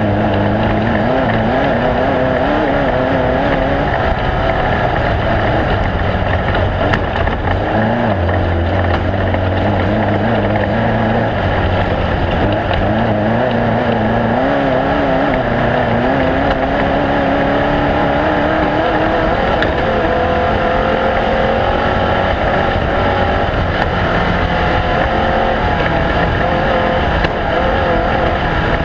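Off-road race vehicle's engine running continuously, its pitch wavering up and down with the throttle, over a steady noisy rumble of the vehicle moving at speed.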